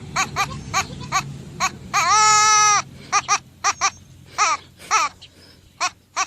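Goat bleating over and over in short wavering calls, with one long held bleat about two seconds in.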